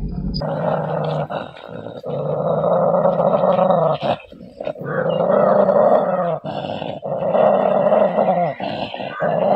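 Dog growling, a rough snarl that starts about half a second in and runs in long stretches broken by short pauses for breath.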